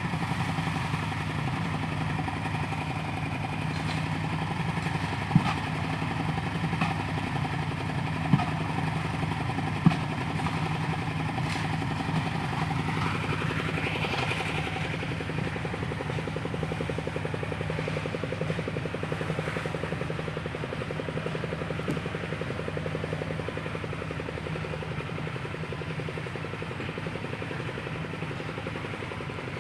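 An engine running steadily, with a few sharp knocks in the first third and a whine that rises and falls in pitch about halfway through.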